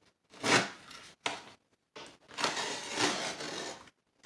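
A blade cutting into the back of a sheet of drywall, rasping strokes through the gypsum: a short stroke, a sharp click, then a longer stroke lasting about a second and a half.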